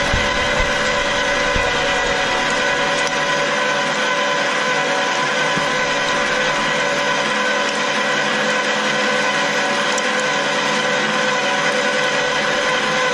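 Electric meat grinder running steadily, its motor and gears whining at a constant pitch as soft toys are drawn down into the auger. A low rumble under the whine fades after the first few seconds.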